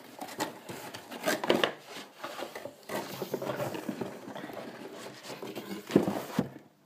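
Hands rummaging inside a cardboard box, with paper and cardboard rustling and scattered knocks; the loudest knocks come about a second and a half in and near the end.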